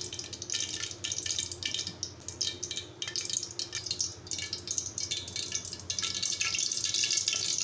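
Groundnut and sesame oil heating in a metal kadai, crackling and spitting with many small pops that thicken into a steadier sizzle near the end; the cook puts it down to a little water in the oil. A low steady hum runs underneath.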